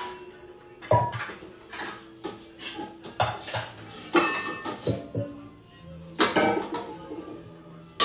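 A metal utensil knocking and scraping against a skillet on the stove as food is stirred: irregular clanks, some leaving a brief metallic ring.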